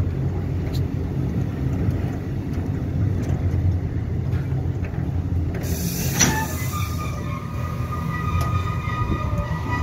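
Loaded container wagons of a freight train rolling past at close range, a steady low rumble. About six seconds in, a sharp click is followed by a high-pitched wheel squeal that holds on.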